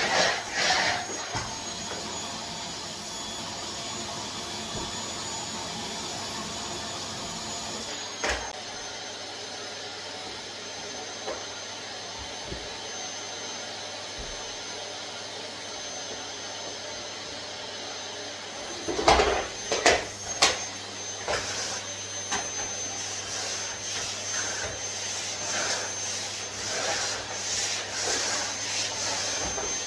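Canister vacuum cleaner running steadily with a high whine as the nozzle is pushed across the floor. A few sharp knocks come about two-thirds of the way through.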